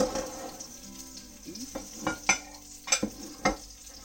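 Spoon pressing and tapping cooked rice into a small bowl, then the bowl set upside down on a ceramic plate: a string of short, sharp clacks of crockery and spoon, several of them close together in the second half.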